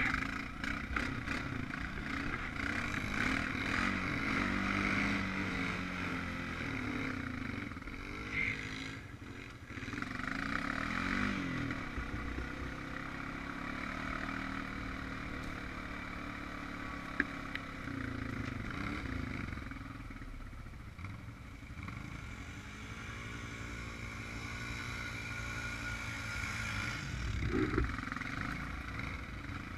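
Honda Rancher 420 ATV engine running, its note rising and falling as the throttle is worked, with brief dips where it eases off.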